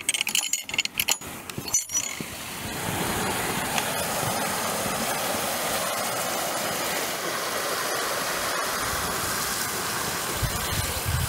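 A few knocks and fabric rubbing as the camera is handled. From about three seconds in, a steady rushing of a stream flowing over rocks.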